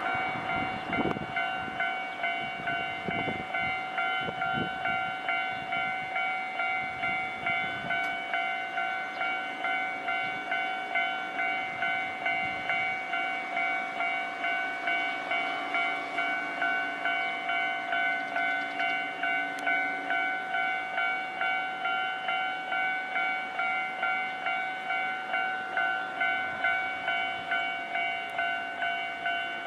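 Railway level crossing warning alarm ringing without a break, one clanging tone repeating about twice a second. It signals that the crossing is closed, held shut by shunting trains.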